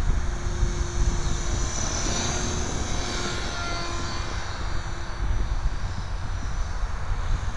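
Align T-Rex 500 electric radio-controlled helicopter flying overhead. Its motor and rotors make a thin whine that shifts in pitch and is strongest a few seconds in. Wind rumbles on the microphone underneath.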